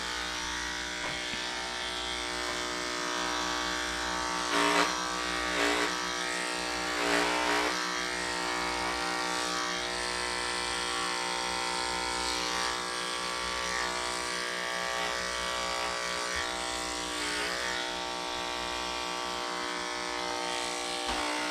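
Cordless electric dog clipper running with a steady, even hum while it clips a Standard Schnauzer's coat. A few brief louder sounds come through about five to seven seconds in.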